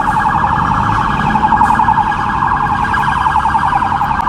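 Emergency vehicle siren sounding continuously in a fast warble, with low city street rumble underneath.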